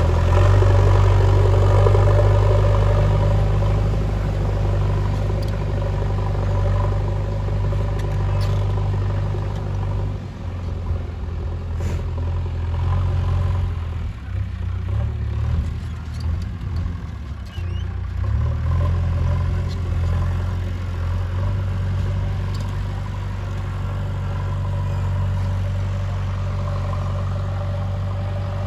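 JCB backhoe loader's diesel engine running under load while digging, its note easing off about a third of the way in and picking up again past the middle, with an occasional sharp knock.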